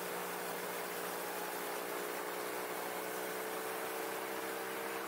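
Motorcycle cruising at a steady speed: an even rush of wind noise over a steady engine hum that holds one pitch.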